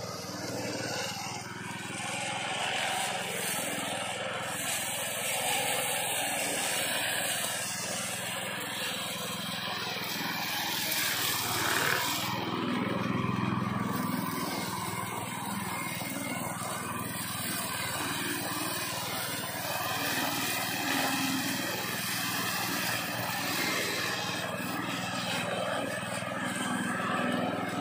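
Small engine of a modified push lawn mower running steadily.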